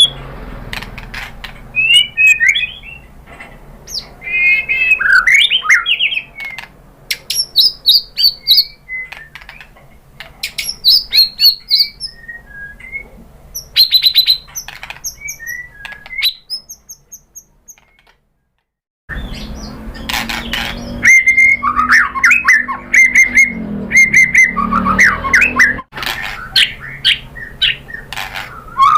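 White-rumped shama (murai batu) singing a varied song of rapid whistles, trills and sharp chattering notes. The song breaks off briefly about two-thirds through and then resumes over a low background hum.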